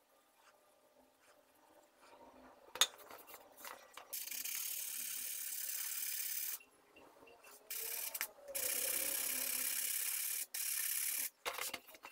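Coarse 40-grit abrasive block rubbed by hand along a rusty steel chisel blade to scour off the rust, in long hissing scraping strokes with short pauses between them. There is a single sharp tap about three seconds in.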